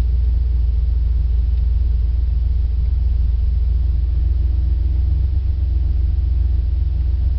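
1993 Dodge Dakota pickup running on gasoline and driving, a steady low rumble heard from inside the cab.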